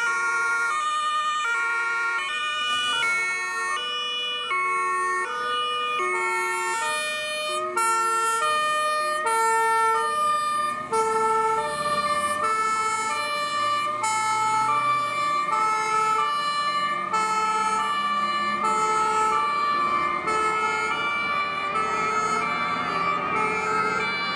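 Two-tone sirens (Martinshorn) on a convoy of fire service vehicles, several sounding at once and out of step, each switching back and forth between two notes. Engine noise rises underneath as the vehicles drive past.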